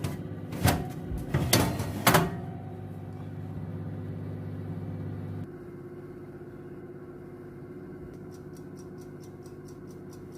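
Electric oven running with a steady hum, with a few clunks in the first two seconds as the tray of dough goes in and the door shuts. About halfway the hum drops and changes, and near the end comes a quick run of small ticks, about five a second.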